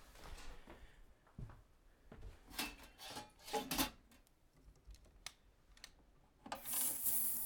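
Small clicks, taps and rubbing from handling small parts and tools at a workbench, with a louder hissing noise starting about a second before the end.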